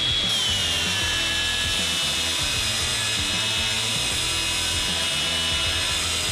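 DeWalt DCG416 brushless cordless angle grinder with a 5-inch flap disc, on a 20 V battery, grinding a strip of 1/4-inch steel flat bar. Its steady high whine drops a little in pitch about a third of a second in as the disc bites into the steel, then holds under load.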